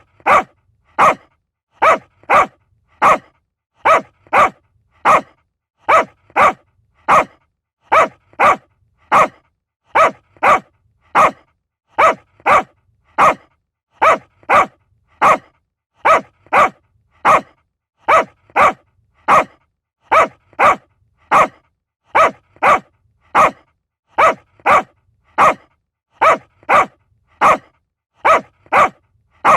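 Small dog barking over and over in short, sharp barks, about one and a half a second in an even, unbroken rhythm.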